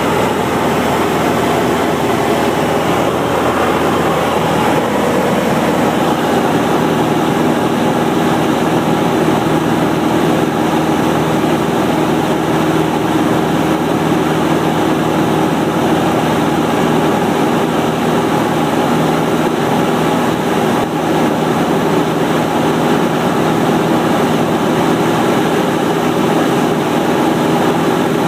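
Single-engine light airplane's piston engine and propeller droning steadily at cruise power, heard from inside the cabin.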